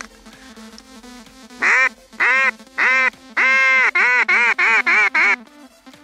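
Duck quacking loudly: three spaced quacks, then one long drawn-out quack, then a quick run of about six shorter quacks.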